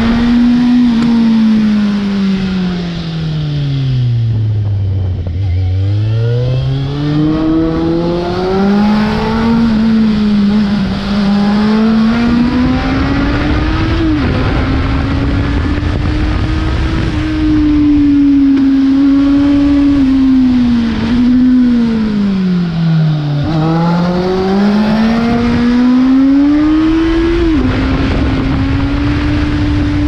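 2005 Kawasaki Z750's inline-four engine running through a full carbon exhaust with the dB killer removed, ridden hard on a winding climb. The note drops away as the throttle closes for a bend about five seconds in and again a little after twenty seconds, climbs back under acceleration, and steps down sharply at two upshifts, about halfway and near the end.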